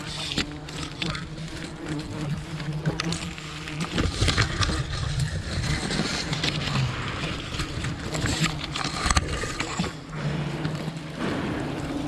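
Wild honeybees buzzing in a steady hum close around, with scattered clicks and rustles from the nest being handled.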